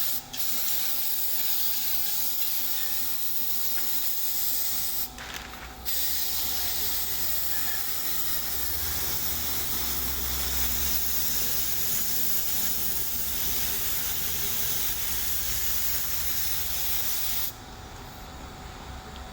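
Compressed-air spray gun hissing in long steady passes, with a short break about five seconds in, then cutting off near the end.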